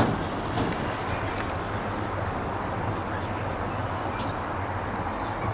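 Steady outdoor background noise with a low hum, and a single click at the start.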